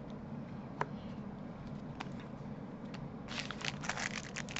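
Trading card pack handling: a single click about a second in, then a dense crackle over the last second or so as a foil card pack's wrapper is crinkled.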